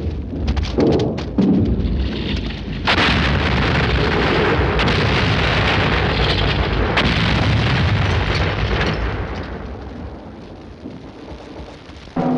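Battle noise of explosions. Low rumbling thuds come first. About three seconds in, a loud, dense barrage of blasts and crackle starts suddenly, then dies away over the last few seconds.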